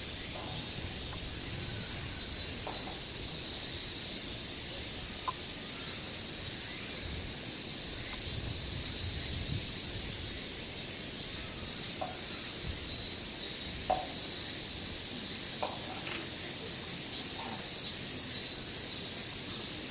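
Summer insects droning: a steady high-pitched hiss that does not let up, with a few faint short chirps scattered through it.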